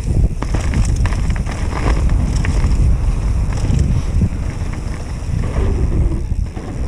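Wind buffeting an action camera's microphone as a mountain bike descends a dirt trail at speed, with a steady tyre rumble and frequent rattling knocks from the bike over bumps.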